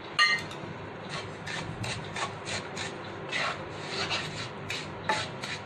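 A spatula stirring and scraping dry semolina in ghee around a ceramic-coated nonstick frying pan: a rhythmic rasping scrape of about three strokes a second as the semolina is dry-roasted. A short ringing clink sounds just after the start.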